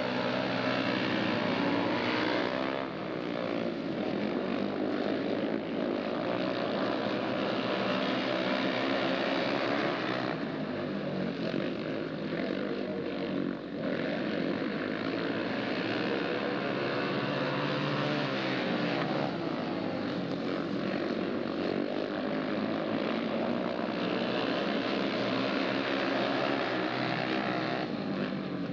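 Several speedway motorcycles racing, their single-cylinder engines running hard in a continuous drone whose pitch keeps shifting as the bikes go round the track.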